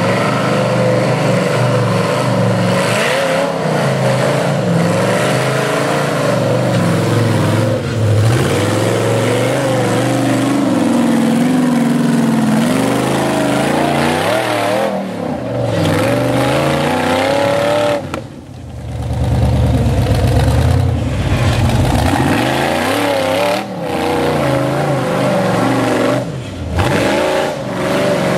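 Propane-fuelled Ford engine of a rock bouncer buggy revving hard and unevenly as it climbs a rocky hill, its pitch rising and falling over and over. About two-thirds of the way through, the engine briefly drops off, then revs up again.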